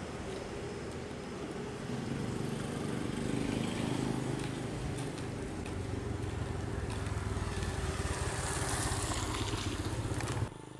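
A motor vehicle engine running steadily, louder in the second half, then cut off suddenly near the end.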